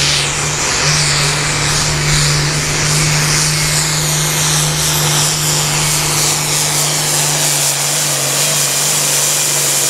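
Hot farm pulling tractor's International Harvester diesel engine at full power hauling a weight-transfer sled: a loud, steady low drone with a high whistle slowly falling in pitch over it.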